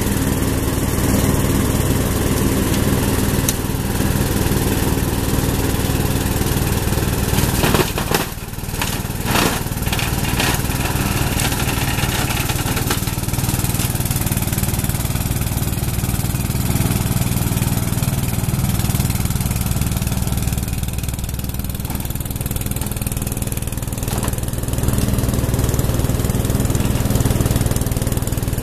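Riding mower's engine running steadily under load while its deck blades cut and shred brush. A cluster of sharp knocks comes about eight to ten seconds in.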